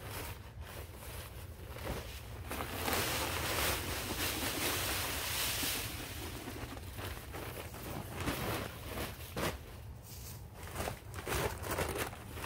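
Dry fallen leaves rustling and pouring out of a paper leaf bag as it is shaken and emptied onto a pile, with the crinkle of the heavy paper. A steady rush of pouring leaves comes a few seconds in, followed by broken rustles and crackles.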